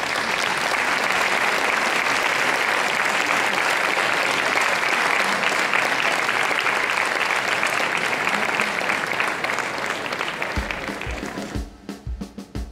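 Audience applauding steadily, fading out near the end as music with a drum-kit beat comes in.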